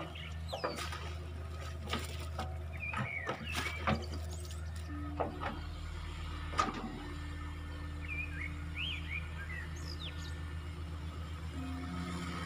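A heavy machine's engine running at a steady low idle, with birds chirping over it now and then and a few short knocks.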